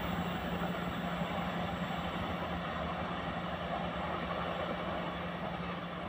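Indonesian express passenger train pulling away along the track after passing: a steady rumble of wheels on rail under a steady low hum, fading slightly.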